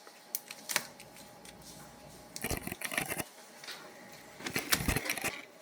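Close-miked ASMR crunching in three bursts of crackly crunches, about two seconds apart.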